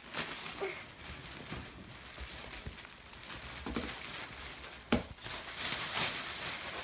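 Rustling and crinkling of wrapping paper and packaging being handled, with a sharp knock about five seconds in.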